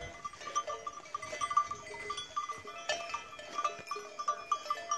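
Bells on grazing livestock clinking and ringing irregularly, several bell tones overlapping.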